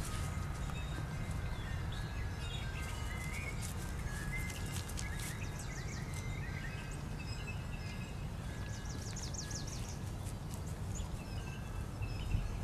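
Birds chirping over a low steady rumble, with scattered light clicks; a quick run of high chirps comes about nine seconds in.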